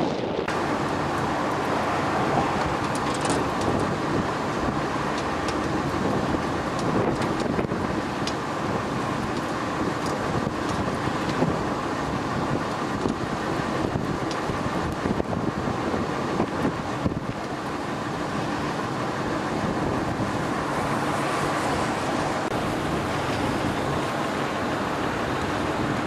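Strong wind rushing over the microphone in a ground blizzard, mixed with traffic on snowy roads, a steady rush throughout.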